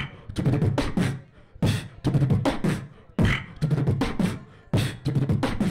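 Fast human beatbox beat into a handheld microphone: sharp kick and snare sounds over a low bass hum, in quick phrases broken by short pauses.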